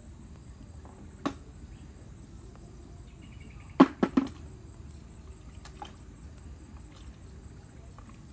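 Snails dropped into a plastic bucket: one sharp knock about a second in, then three quick knocks about four seconds in. Under them a steady low outdoor rumble and a thin, high insect trill.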